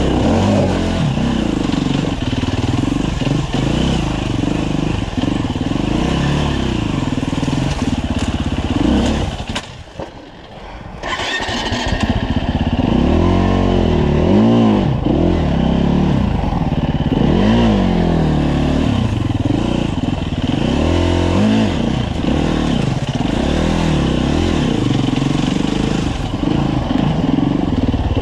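2015 Husqvarna FE 350's single-cylinder four-stroke engine revving up and down as the dirt bike is ridden. About a third of the way in, the engine sound drops away for a second or so, then comes back.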